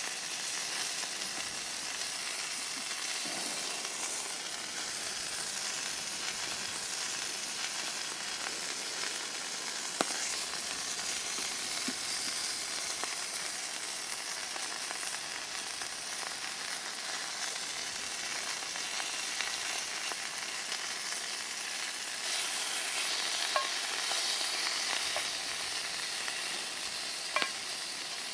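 Sausages frying in a cast iron pan over a campfire: a steady sizzle that grows a little stronger about three-quarters of the way through, with a few sharp clicks.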